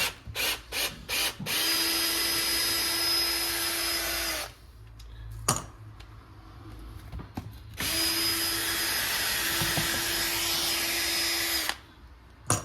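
Cordless drill-driver backing out screws: a few short trigger blips, then two steady runs of about four seconds each with a constant whine, and a sharp click between them.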